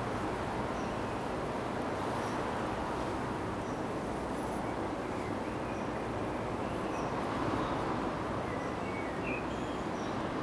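Steady outdoor background noise, an even rush with no distinct events, with faint high-pitched bird chirps now and then.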